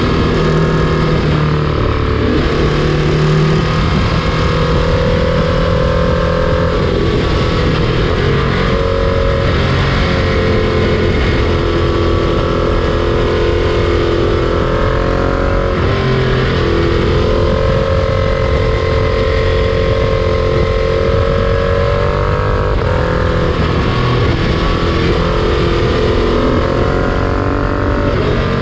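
Freight train in motion: a steady, loud rumble of wheels on rail, overlaid by several sustained tones that drift slowly up and down in pitch.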